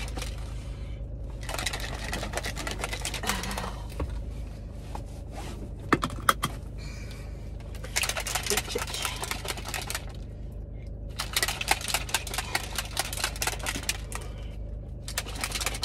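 Bursts of rapid, light clicking, like typing, in several runs of a few seconds each, with one sharper knock about six seconds in. Under it runs a steady low hum.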